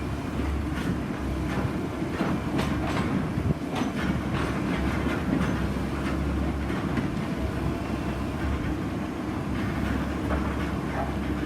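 Heavy drilling-rig machinery running with a steady low rumble, and irregular metal clanks and knocks, most frequent in the first few seconds.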